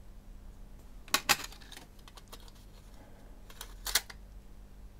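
A few sharp clicks and taps from a small metal MiniDisc player mechanism being handled and turned over in the hands: two close together about a second in, and two more just before four seconds.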